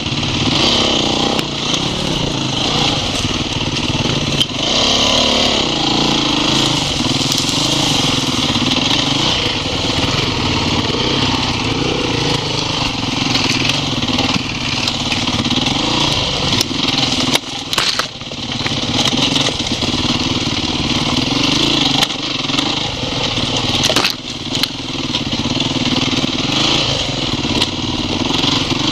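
Off-road motorcycle engine running under load, its pitch rising and falling with the throttle as the bike climbs a rough trail. A few sharp knocks come through in the second half.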